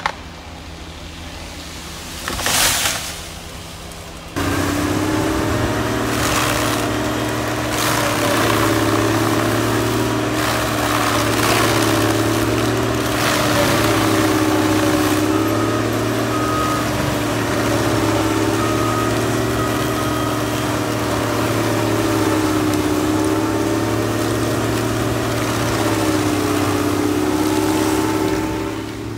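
Tracked forestry mulcher's diesel engine running hard, its pitch sagging and recovering every few seconds as the rotary drum head bites into the wood, with short crashes of wood being shredded. For the first few seconds it is fainter, with one brief rush of noise, before it turns suddenly loud and close.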